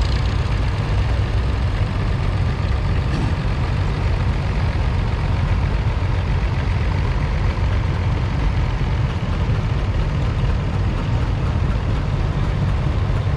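Steady low engine rumble from antique farm tractors idling and driving by at low speed.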